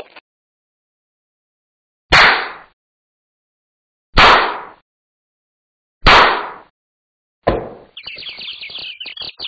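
Four loud, sharp hits about two seconds apart, each dying away within half a second, followed by a rapid, high, fluttering chatter for the last second and a half.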